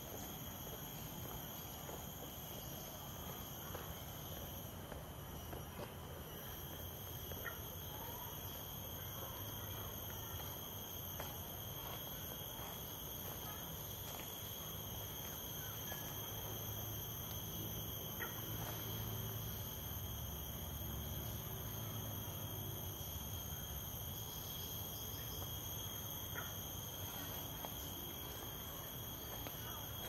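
Tropical insect chorus: a steady, high-pitched drone at several pitches at once, with a low rumble underneath and a few faint short chirps.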